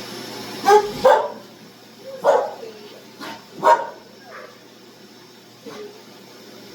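Puppy barking at a vacuum cleaner: four sharp barks and two softer ones. The vacuum's steady running fades out about a second in.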